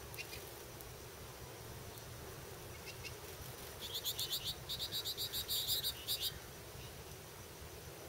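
A small songbird's rapid chattering call: a quick train of short, high notes, about eight a second, in two bouts from about four to six seconds in.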